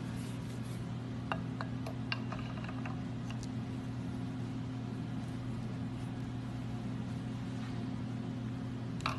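Steady low hum of shop machinery, with a few light metallic clicks and knocks in the first few seconds as a ball joint stud is set up into the reamed taper of an aluminium steering knuckle.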